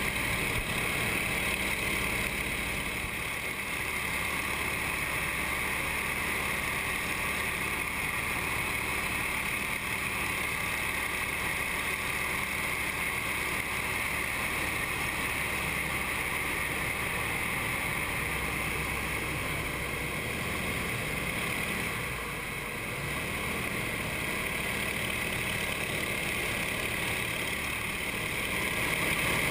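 Aerobatic trainer's nine-cylinder radial engine droning steadily in flight, heard from inside the closed cockpit canopy.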